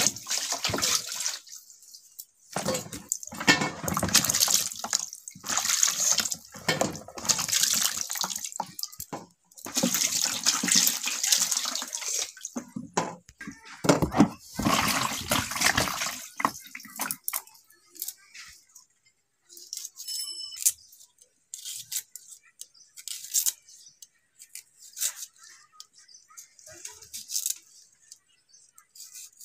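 Water splashing and sloshing in repeated bursts as small striped melons are rubbed and washed by hand in a steel plate of water. In the second half this gives way to sparse light clicks and scrapes as a melon is cut with a curved blade.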